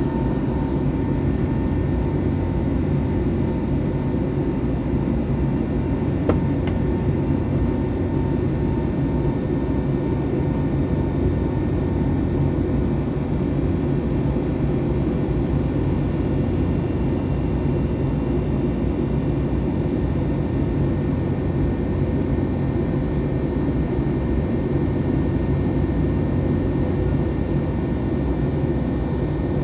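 Cabin noise of an Airbus A321neo in the climb, heard from a window seat beside the wing: its Pratt & Whitney PW1100G geared turbofans running steadily at climb power, a broad, even rumble with faint steady whining tones above it.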